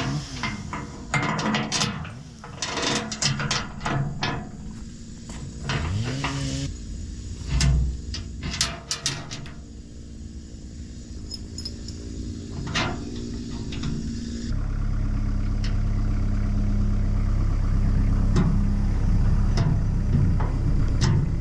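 A run of sharp cracks and knocks, then from about two-thirds in a vehicle engine running steadily.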